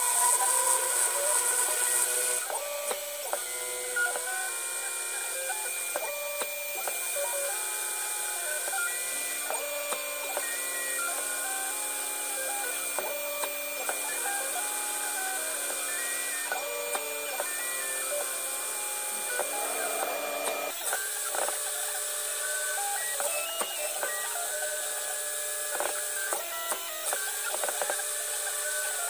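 CNC-converted Precision Matthews PM-25MV mini mill cutting a wooden block with a small end mill. The spindle and cutter make a steady high whine, while the axis drive motors whine in tones that jump to a new pitch every second or so as the toolpath changes speed and direction.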